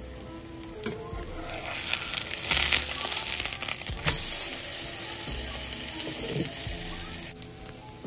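Korean vegetable pancake sizzling in oil in a nonstick frying pan. The sizzle grows louder from about two seconds in as the pancake is flipped, with a soft thud about four seconds in, and falls away shortly before the end.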